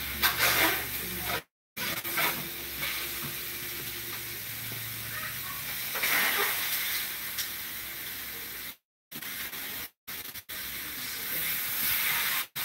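Frozen chicken sizzling and hissing steadily in a hot, dry stainless steel pan with no oil. The audio cuts out briefly a few times.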